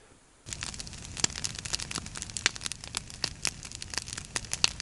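Wood campfire crackling: a dense, irregular run of sharp pops and snaps over a low hiss, starting abruptly about half a second in.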